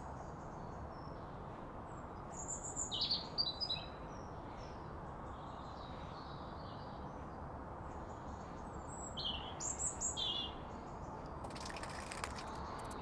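Birds chirping in two short spells over a steady background hiss, with a quick run of clicks near the end.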